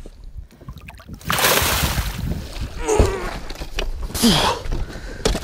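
A big pike thrashing in a landing net at the boat's side, splashing water hard for about a second and a half, then a single knock and a second, shorter splash.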